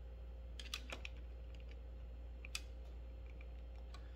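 Light clicks and taps of a sunglasses arm and frame being handled and fitted together: a quick cluster about a second in, a sharper single click past two and a half seconds, and a few small ticks near the end, over a faint steady low hum.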